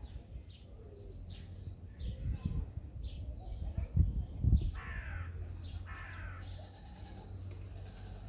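Two harsh bird calls about a second apart, over small birds chirping. A few low thumps are louder than either.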